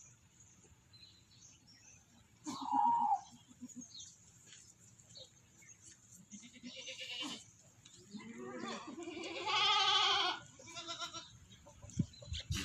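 Goats bleating in three separate calls with quiet between, the last and loudest lasting about two seconds.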